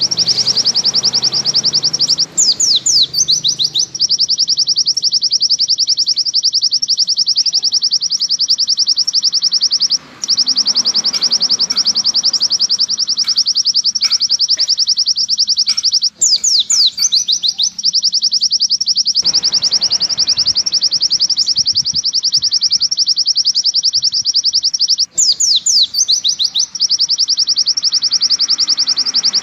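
White-eye (pleci) singing its long 'nembak panjang' song: a loud, unbroken, very fast trill of high notes. Three times it breaks into a short run of down-slurred notes, then goes back to the trill.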